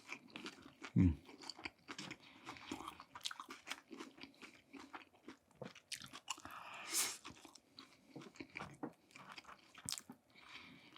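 Close-up biting and chewing of crispy fried chicken, the skin crackling and crunching in many small clicks, with a low thump about a second in.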